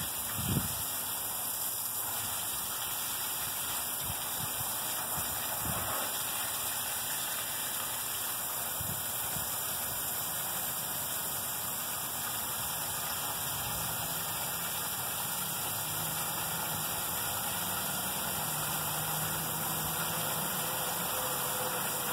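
Garden hose spraying water onto potted plants: a steady hiss of spray, with a brief thump about half a second in.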